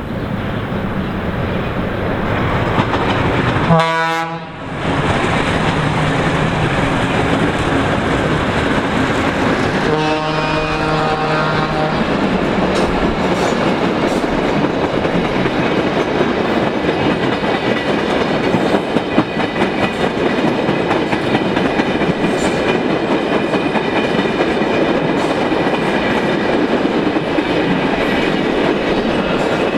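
Train sounding its horn: a short note about four seconds in, then a steady blast of about two seconds starting around ten seconds in, over the continuous rumble and wheel clatter of the train running on the rails.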